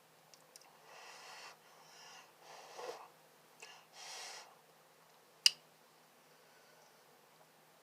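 Several short noisy breaths and slurps from someone eating hot and spicy instant noodles, then a single sharp click about five and a half seconds in.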